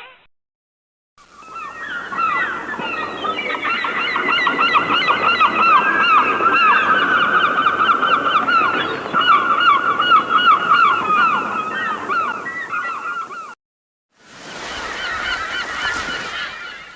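A flock of birds calling in chorus: many overlapping, rapidly repeated calls that fade in after about a second of silence. They cut off, and after a short gap a second, briefer stretch of the same calling fades in and out.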